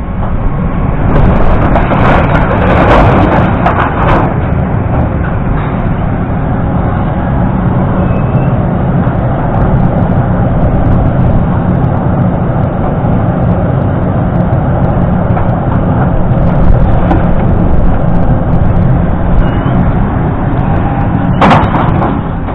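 An engine running steadily, with a cluster of rattles and knocks about one to four seconds in and one sharp knock near the end.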